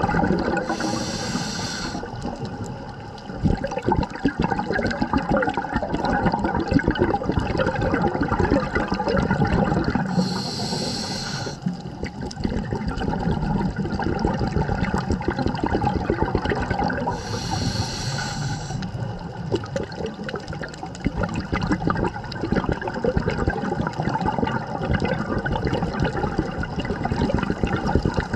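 Scuba diver breathing through a regulator underwater: a short high hiss on each inhale, about every seven seconds, three times in all, with long stretches of bubbling and rumbling from the exhaled air between them.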